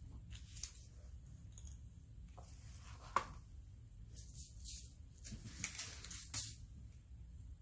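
Plastic rhinestone organizer boxes being set down and handled on a tabletop: light rustles, a sharp click about three seconds in, then a cluster of clicks and rustles.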